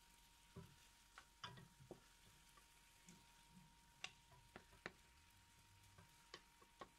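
Faint, irregular ticks and light knocks of a wooden spatula turning marinated chicken pieces frying in a nonstick pan, over a faint steady high tone.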